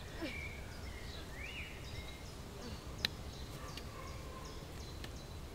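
Steady low outdoor background noise with small birds chirping now and then, and one sharp click about three seconds in.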